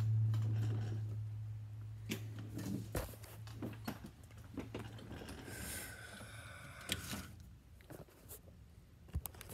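Steady low electrical hum from workshop equipment that fades away over the first few seconds, with scattered clicks and knocks of the phone being handled and a brief high-pitched whine about six seconds in.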